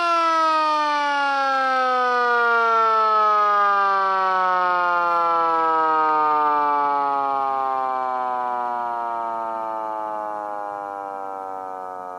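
Miniature Sterling M siren winding down: its single wail falls steadily and smoothly in pitch as the rotor coasts to a stop, fading over the last few seconds.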